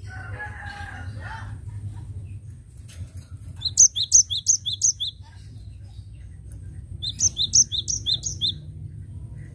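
Cinereous tit singing: two bursts of its rhythmic song, about four and seven seconds in, each a quick run of about five two-note phrases, a high note then a lower one.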